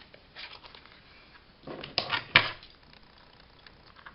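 A metal eyelet being set through card: a short, loud burst of crunching clacks about two seconds in, peaking twice in quick succession, after some softer handling noise.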